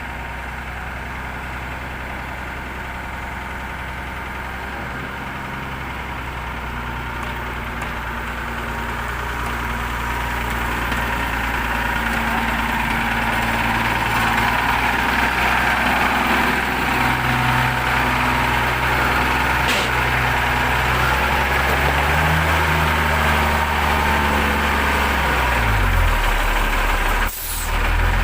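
Heavy vehicle's engine running steadily, growing louder over the first half, its pitch stepping up and down and falling near the end. The sound briefly cuts out about a second before the end.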